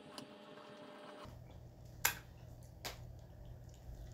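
A few sharp clicks and small wet handling noises from squeezing a lime wedge over a street taco and lifting it to bite, the loudest click about two seconds in, over a low steady hum.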